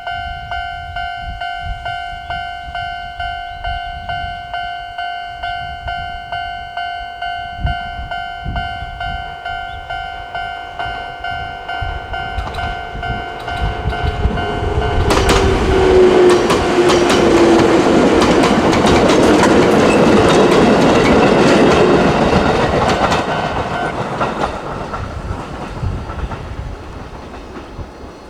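Japanese railway level crossing alarm in the old standard electronic tone, repeating a steady ding at a little under two a second. About halfway through, a train passes through the crossing, its wheels clattering over the rail joints with a falling whine, and it is the loudest sound. The alarm stops about two-thirds through and the train noise fades away.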